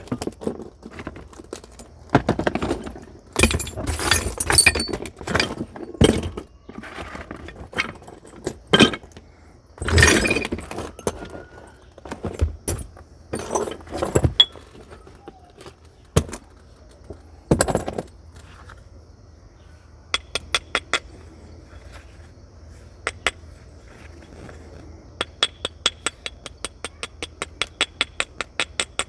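Flint being knapped with natural tools: sharp, irregularly spaced strikes and knocks of a stone or antler percussor on the flint, some followed by scraping. About twenty seconds in, the sounds become lighter quick ticks, running at about four to five a second near the end.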